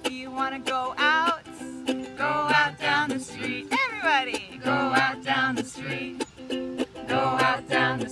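Ukulele strummed in a steady rhythm, with a woman singing a folk melody over it, her voice sliding up and down through the phrases.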